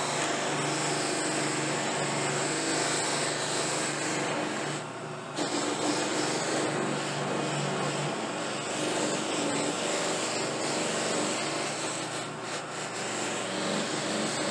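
Motor-driven buffing wheels running with a steady hum while a dyed briar pipe is pressed against them and buffed. The sound dips briefly about five seconds in and again near the end.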